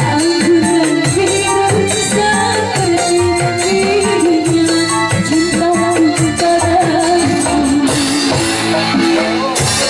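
A young woman singing a held, wavering melody into a microphone over a small live band with busy hand percussion and drums. The percussion thins out briefly near the end.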